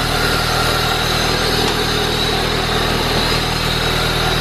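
Honda DOHC VTEC four-cylinder engine idling steadily, fully warmed up, heard close up from the open engine bay.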